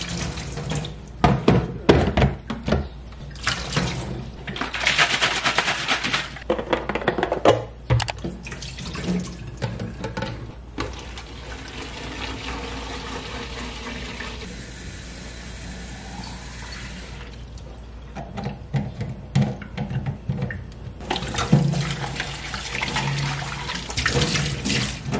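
Kitchen tap running water into and over the plastic bottle and base of a pet water feeder in a stainless steel sink. The plastic parts knock and clatter as they are handled and rinsed, with a steadier stretch of running water in the middle.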